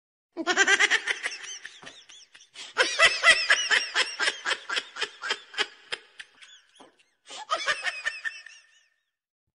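Laughter sound effect: a quick, high-pitched 'ha-ha-ha' cackle, about five laughs a second. It comes in three stretches with short breaks between them and stops a little before the end.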